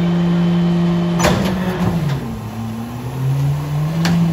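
Mack Granite rear-loader garbage truck with a Leach body running its hydraulic packer: the diesel engine runs steadily at raised revs for the hydraulics, a sharp clank comes about a second in, the engine's pitch sags and then climbs back, and another clank follows near the end.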